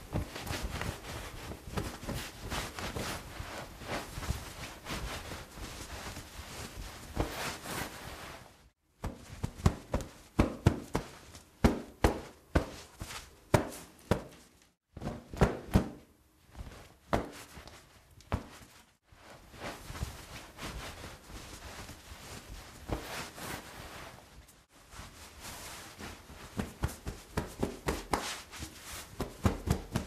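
Bath towel rubbed over the body while drying off: a run of quick cloth-rubbing strokes, stopping briefly four times between takes.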